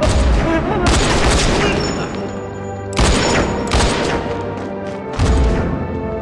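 Gunfight sound effects: about five loud bursts of gunfire and booms, over a dramatic film score.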